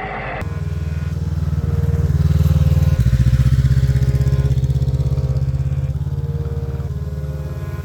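Motorcycle engine running with a steady low, pulsing note, growing louder over the first few seconds and then slowly easing off.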